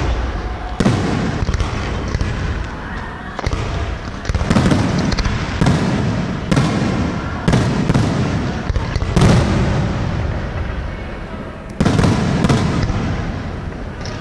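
Aerial fireworks shells bursting: more than a dozen sharp bangs at irregular intervals, mostly under a second apart, each trailing off in a low rumbling echo.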